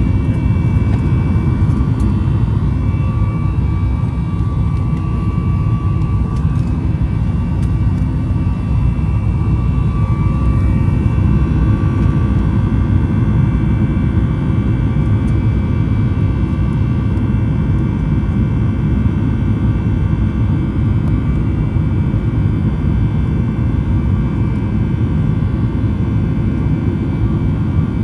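Cabin noise of a Boeing 737 MAX 9: its CFM LEAP-1B jet engines and airflow make a steady, loud rumble with high, faint engine tones. The tones shift in pitch about eleven seconds in.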